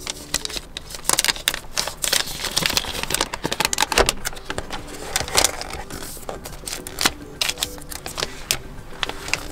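Clear plastic protective wrap being peeled off a tablet and crinkled in the hands: a run of rustling and crackling, loudest in the first half.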